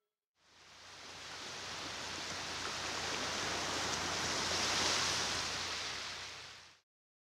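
Surf washing onto a sandy beach: an even hiss of water that swells for about four seconds, then fades and cuts off abruptly near the end, with a low steady hum underneath.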